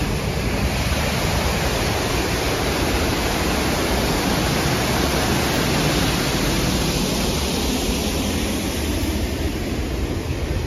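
Man-made waterfall pouring down a wall into a stream, a steady rushing of falling water; the higher hiss thins a little toward the end.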